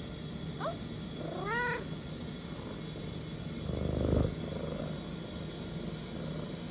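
Domestic cat giving a short chirp and then a meow that rises and holds, about a second and a half in. About four seconds in comes a brief, louder rustle as the cat shifts under the hand. A steady low hum runs underneath.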